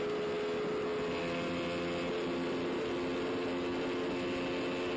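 Ducati Panigale 1199 sportbike's V-twin engine running steadily at high revs in sixth gear at high speed, one even engine note.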